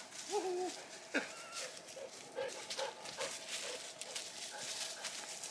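A dog whining in short, high whimpers, with footsteps rustling through dry leaf litter.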